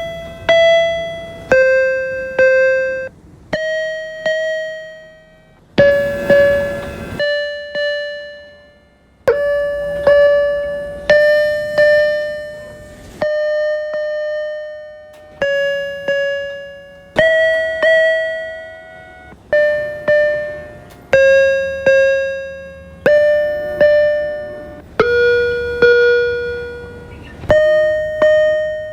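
MBTA Orange Line subway car interior door chimes, one recording after another: each a single electronic ding that fades over a second or two, a new chime about every one and a half seconds, each at its own pitch.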